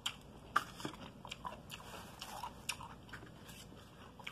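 Close-up eating sounds of someone chewing coleslaw: quiet, irregular crunches and small wet mouth clicks, a few to the second.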